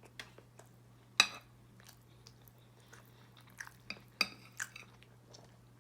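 Close-up chewing and wet mouth smacks while eating fried fish and baked macaroni and cheese, in scattered short clicks with a sharper one about a second in and a cluster near four seconds, over a low steady hum.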